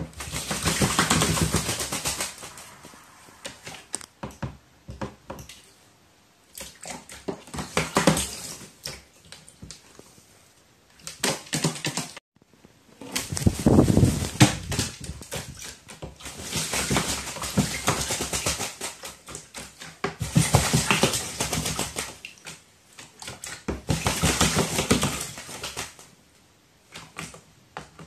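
Crow bathing in a shallow plastic tray of water, splashing and beating its wet wings in repeated bouts of a few seconds each with short pauses between. Around the middle it flaps up out of the tray in the loudest bout.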